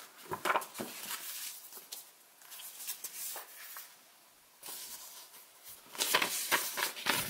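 Paper leaflets and printed manuals rustling as they are handled and shuffled, in irregular short rustles that grow louder and denser near the end.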